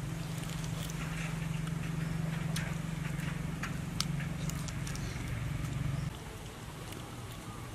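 Close-up mouth noises of eating bone-in quail with the hands: chewing and lip-smacking with scattered sharp, wet clicks. A steady low hum underneath cuts off abruptly about six seconds in.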